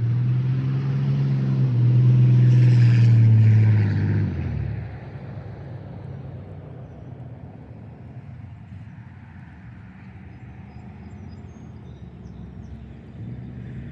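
Golf cart running with a steady low hum that stops suddenly about four and a half seconds in, followed by a fainter, even low rumble.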